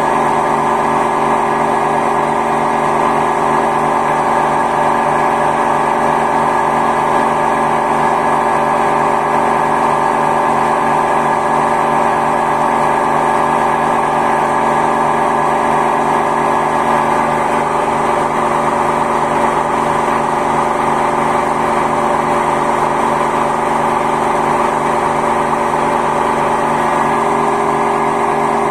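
Samsung WW10T534DAW front-loading washing machine running its spin cycle with a loud, steady mechanical roar and hum: the noise of worn drum bearings, which a technician found needed replacing.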